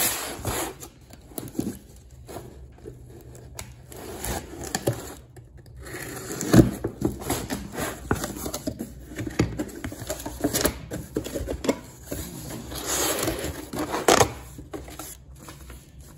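Unboxing a cardboard box: packing tape being cut and torn, then the cardboard flaps pulled open, with scraping, rustling and irregular knocks. The loudest knock comes about six and a half seconds in.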